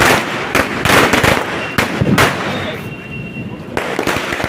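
Firecrackers going off: several sharp bangs over the first couple of seconds, a brief high whistle around three seconds in, then a dense run of rapid crackling near the end.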